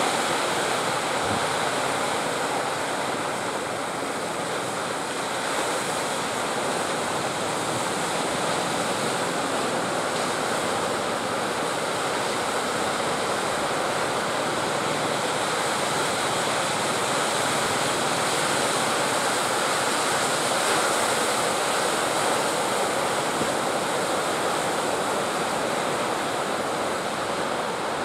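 Ocean surf breaking steadily, a continuous wash of waves.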